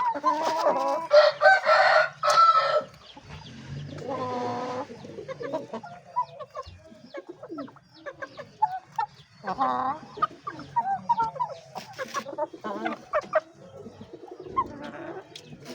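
Chickens clucking and calling, loudest in the first few seconds, with a longer call, likely a rooster's crow, about four seconds in and another near ten seconds.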